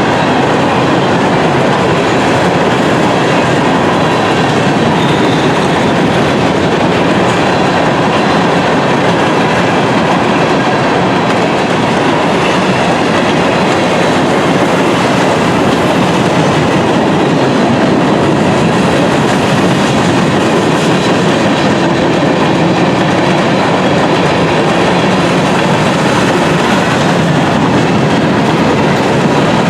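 A train's railroad cars rolling past close by, a loud, steady noise of wheels on rail that goes on without a break.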